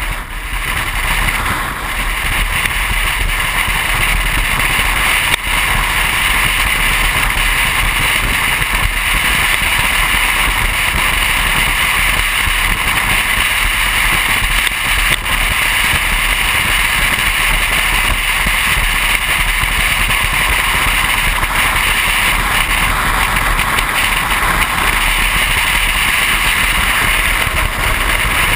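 Car driving at road speed: a steady rush of wind and road noise that builds over the first couple of seconds, then holds level.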